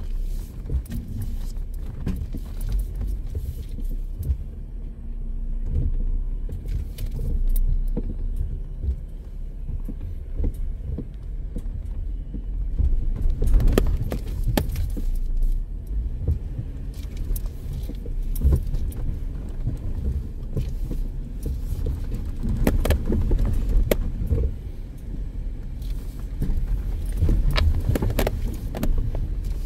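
Off-road vehicle crawling down a rough dirt trail: a steady low engine and drivetrain rumble, with frequent clatters and knocks as it jolts over ruts and rocks.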